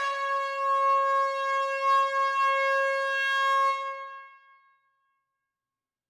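Air horn sounding one long, steady blast in a hall, holding a single pitch, then cutting off about four seconds in and dying away in the hall's echo.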